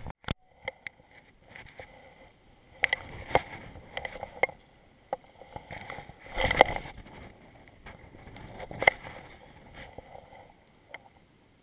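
Irregular knocks and rubbing scuffs from a body-worn camera as a wading angler moves and works a fly rod, with water moving around him.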